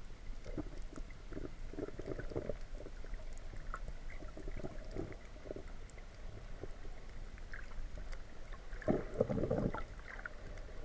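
Muffled underwater sound picked up through a camera's waterproof housing: a low rumble with bursts of water sloshing and bubbling, the strongest near the end.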